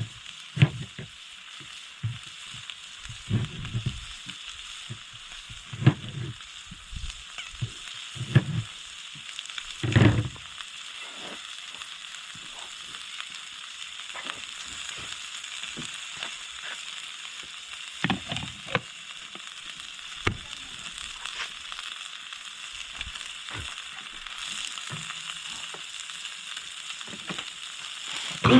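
Food frying in a pan with a steady sizzle, with scattered knocks and clatter now and then.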